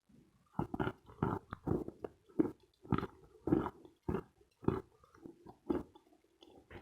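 Close-miked chewing of dense, dry Khrapovsky chalk: a steady run of crisp crunches, about two a second.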